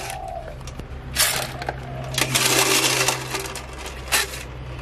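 Blanched blood cockles clattering against a metal ladle and pot as they are scooped out, the shells knocking and clinking on the steel and on each other in rattling bursts about a second in, from about two to three seconds in, and once more near the end.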